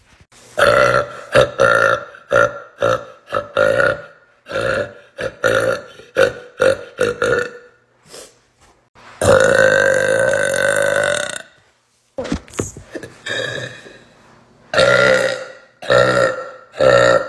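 Burping: a rapid string of short burps, then one long drawn-out burp lasting about two seconds around the middle, followed by more short, loud burps.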